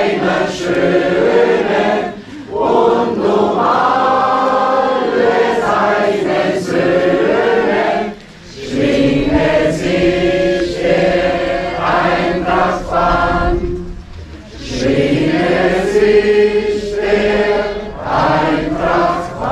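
A large group of men and women singing a song together in unison, without instruments, in long phrases with brief breaks between them.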